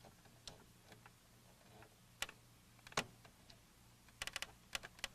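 Faint, scattered clicks and taps of hands handling the plastic case and parts of a Macintosh Portable during reassembly, with a quick run of clicks about four seconds in.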